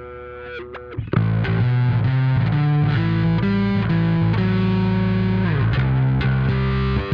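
Fender Precision Bass (Player series) played through a Dunlop mini bass wah, a Darkglass Vintage Deluxe overdrive and a Walrus Audio ARP-87 delay. A quieter held note sweeps and slides, then about a second in a loud, distorted bass riff starts.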